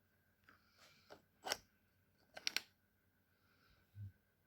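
Handling of a welding mask's plastic parts: a few sharp clicks and taps, the loudest a quick double about two and a half seconds in, then a soft low thump near the end.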